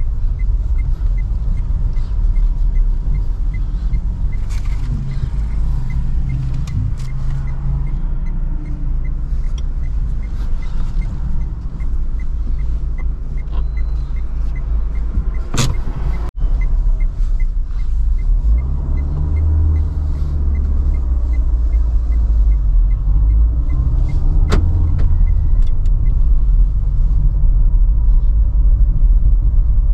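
Cabin sound of a 2012 Renault Sandero Stepway in slow city traffic: engine and road rumble, with a turn-signal relay ticking about three times a second until near the end. The engine note rises toward the end as the car pulls away. There is one sharp knock about halfway.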